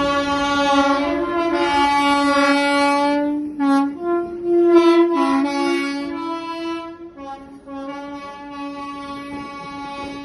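Two-tone train horn sounding a series of blasts, switching between a high and a low note, then growing fainter over the second half with a long low note near the end.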